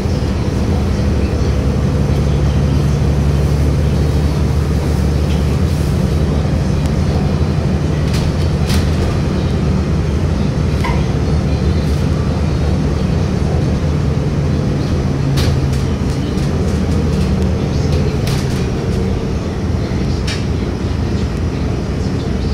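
Cabin sound of a 2018 Hometown Trolley, a bus built to look like a streetcar: its engine runs with a steady low drone. A few light clicks and rattles sound now and then.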